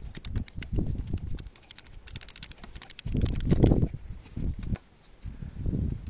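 Hand tools at work in the spark plug well of an Audi/VW 2.0 TFSI engine as the plug is loosened and drawn out: a quick run of light metallic clicks, over low rumbling thumps of handling.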